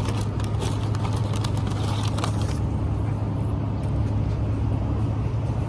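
Steady low outdoor rumble, with a run of close crackly clicks for the first two and a half seconds while tortilla chips are handled.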